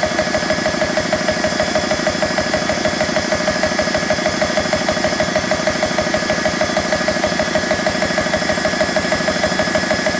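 BSA high-pressure air compressor running steadily with a fast, even chugging beat, pumping air into an air gun that is nearing full fill pressure.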